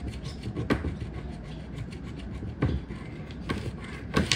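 A coin scraping the coating off a paper scratch-off lottery ticket, in several short strokes.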